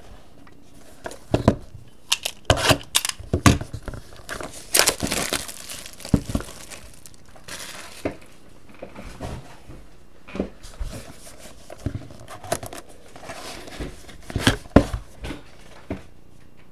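Clear plastic shrink-wrap crinkling and tearing as it is stripped off a sealed trading-card box. It comes in irregular crackles, busiest in the first five seconds, then gives way to sparser handling clicks and taps.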